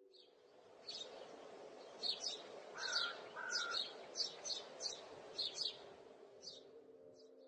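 Birds chirping in short, high, repeated calls over a faint steady outdoor background hiss.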